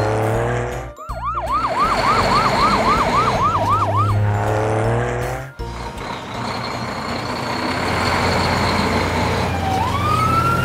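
Cartoon siren sound effect: a fast yelping siren, about three cycles a second for some three seconds over a music jingle, then after a pause a wailing siren starting to rise in pitch near the end.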